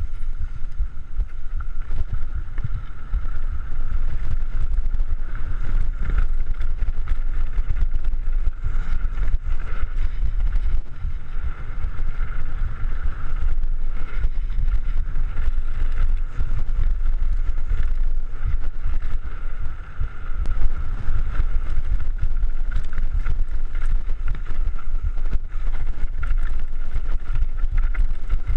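Mountain bike descending a dirt trail, recorded on the rider's body-mounted camera: heavy wind rumble on the microphone with the constant rattle and knocking of the bike and its tyres over the rough ground. A steady high hum runs through it.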